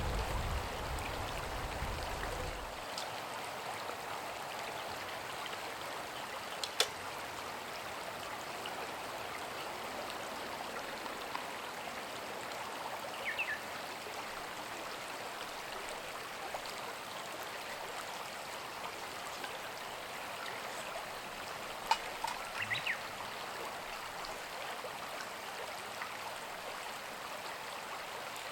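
Steady rushing, water-like noise, as of flowing or bubbling water, with a few sharp snaps, one about seven seconds in and a cluster about twenty-two seconds in.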